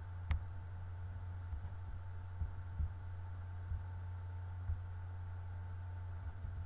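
Steady low electrical hum in the recording, with a sharp computer mouse click about a third of a second in and a few soft low thumps scattered through.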